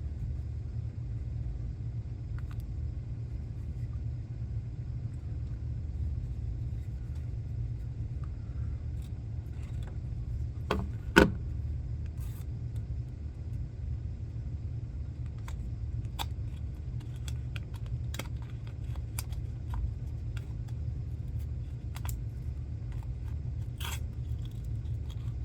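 Light clicks and taps of a plastic screen-protector installation tool and its packaging being handled, with one sharper click about eleven seconds in, over a steady low rumble.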